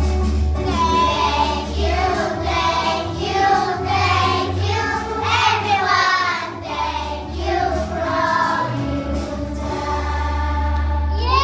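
A group of young children singing a song together over a backing music track with a steady bass line.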